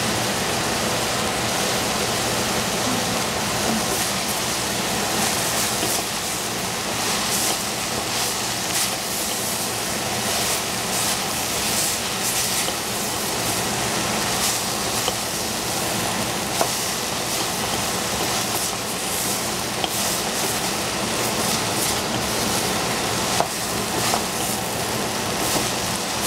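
Food frying in hot oil in a pan: a steady sizzle with scattered small crackles and an occasional sharper pop.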